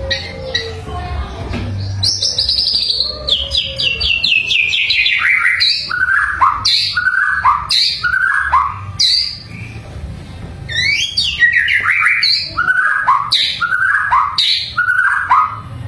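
A bird singing: a quick run of short notes falling steadily in pitch from high to low, then slower down-slurred notes, with the falling run repeated about two-thirds of the way through.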